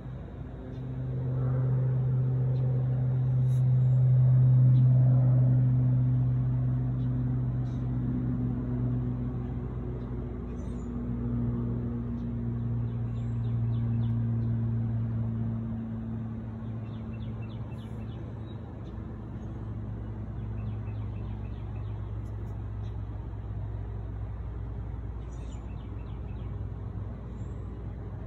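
A steady low motor hum with a slightly drifting pitch, swelling to its loudest about four to five seconds in and then settling.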